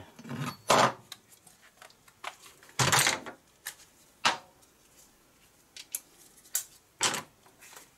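Hand tools being picked up and put down on a steel workbench: about half a dozen separate metal clacks and knocks, with a short rattle about three seconds in.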